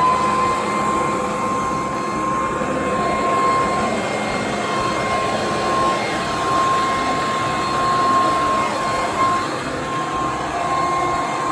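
WORX 12 amp TRIVAC electric leaf blower/vacuum running at full speed in vacuum mode: a steady high motor whine over a constant rush of air.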